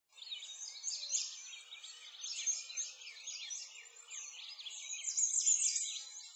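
Many small birds chirping and singing at once, a dense chorus of quick, high rising-and-falling chirps that overlap, slightly louder near the end.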